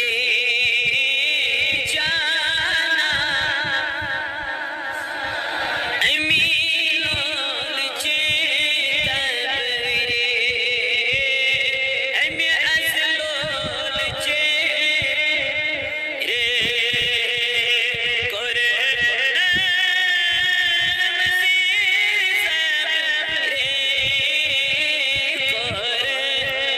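A Kashmiri naat sung as one unbroken, wavering melody, with long held notes and vibrato and a new phrase every few seconds.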